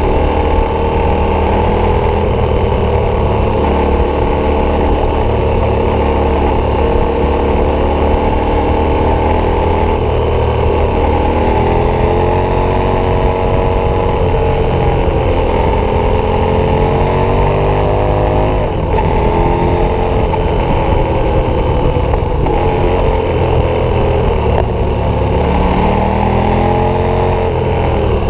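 KTM 1190 Adventure's V-twin engine running through a Wings aftermarket exhaust, heard from the rider's seat while riding, its pitch rising and falling several times with throttle and gear changes.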